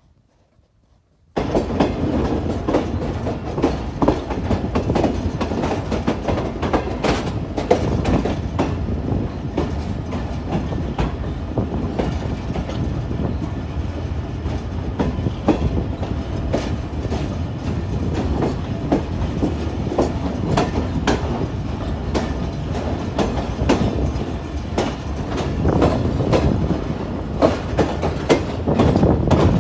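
Wheels of the Tezgam express passenger train's coaches clattering over the track as the train rolls slowly past, with a steady rumble under irregular clicks. It starts suddenly about a second in.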